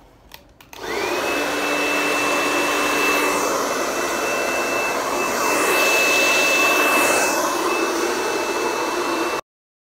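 A few clicks, then a handheld electric hair dryer starts up about a second in: its motor whine rises quickly to a steady high pitch over the loud rush of blowing air, which swells and eases as the dryer moves over the head. The sound cuts off abruptly near the end.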